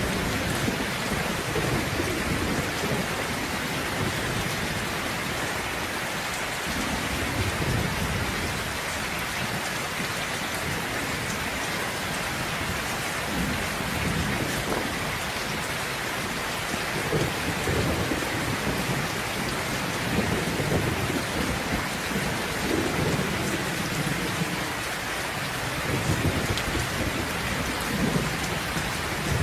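Steady rain, with low thunder rumbling on and off underneath it.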